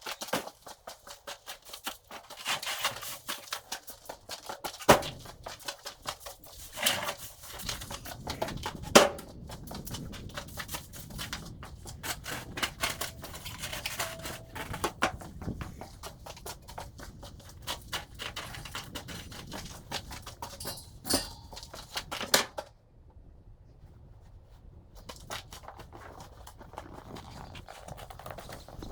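Objects being handled and moved about, a steady run of irregular clicks, rattles and rustles with several louder knocks, and a short quieter lull near the end.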